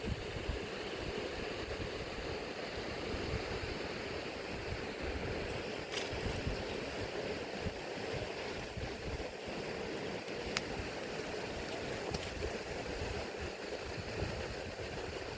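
Steady rushing of a fast mountain river, with a few faint clicks over it.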